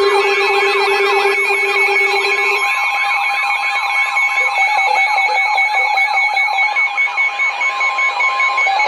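Several emergency-alert alarm tones sounding at once between two tornado warnings: a quickly repeating swept tone, about three or four sweeps a second, over steady and pulsing beeps. A lower steady tone stops about two and a half seconds in.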